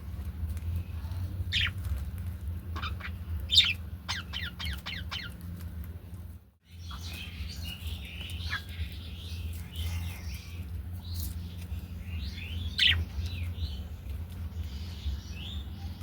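Budgerigars chirping and chattering: sharp, quick falling chirps in the first half, then a busier warbling chatter after a brief dropout about six and a half seconds in, over a steady low hum.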